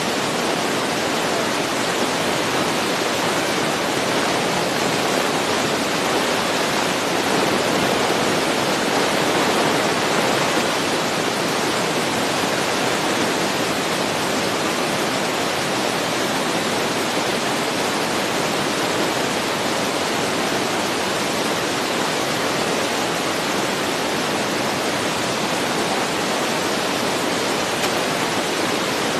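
Steady, even rushing noise with no distinct events, swelling slightly about eight to ten seconds in.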